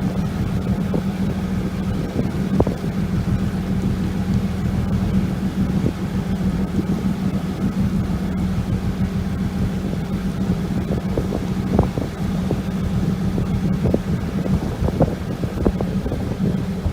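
Boat engine running at a steady drone, with wind buffeting the microphone and a few short knocks.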